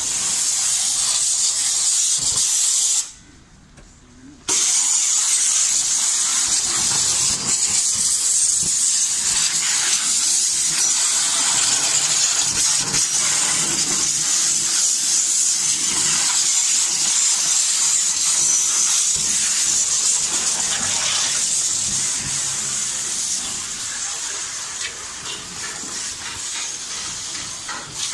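Hand-held high-pressure water lance hissing steadily as it sprays down the side of a railway coach. The spray cuts off suddenly about three seconds in and comes back a second and a half later.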